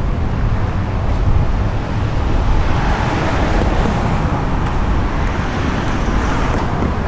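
Road traffic on a multi-lane city street, with a car passing close by: its tyre and engine noise swells from a few seconds in and fades again near the end.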